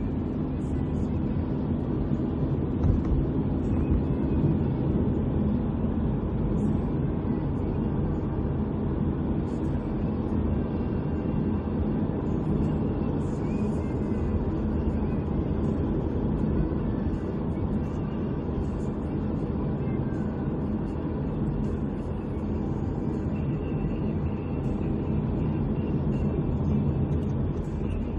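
Steady road and engine rumble of a car in motion, heard inside the cabin.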